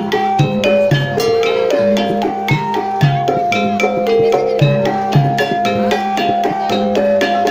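Javanese gamelan playing jaran kepang music: a quick, steady run of struck metal-keyed notes in a stepping melody over a held ringing tone, with regular hand-drum strokes keeping the beat.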